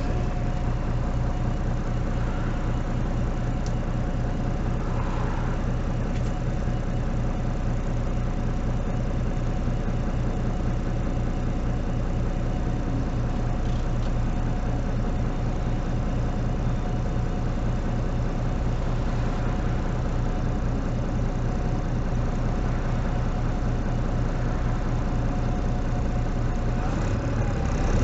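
MAN NL223 city bus's six-cylinder diesel engine idling steadily while the bus stands still.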